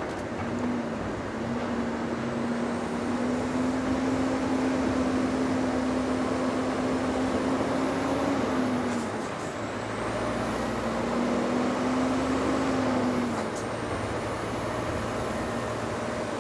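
Lorry engine heard from the cab while pulling away up a ferry ramp: its note climbs slowly in pitch, falls away about eight seconds in, climbs again and falls away once more near thirteen seconds.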